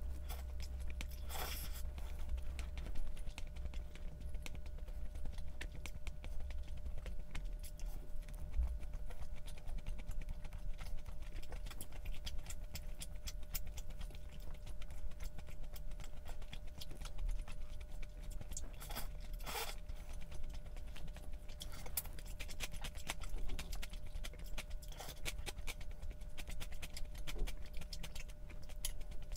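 Close-miked eating: chewing and bites with many small clicks and scrapes of utensils against a dish or container, over a steady low hum.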